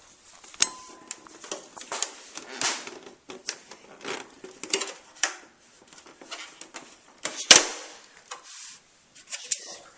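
Handling noise from a food container of chicken being opened and moved on a kitchen counter: a run of clicks, knocks and rustles. There is a short electronic beep about half a second in and a louder knock about seven and a half seconds in.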